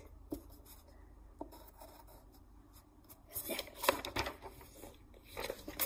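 Pencil and paper handling: faint scratches and clicks, then louder rustling of a sheet of drawing paper as it is moved close to the microphone, from about three seconds in and again near the end.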